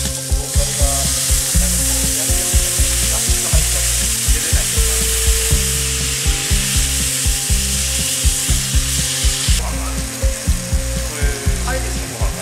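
Salted salmon fillets in a frying pan on a portable gas stove, sizzling hard with steam after liquid is splashed in from a carton. The hiss cuts off suddenly near the end. Background music with a steady beat plays underneath.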